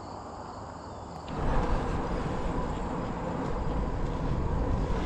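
Steady insect trilling along a quiet road, then about a second in, an abrupt change to loud wind rumble on the microphone with tyre and road noise from a bicycle riding along.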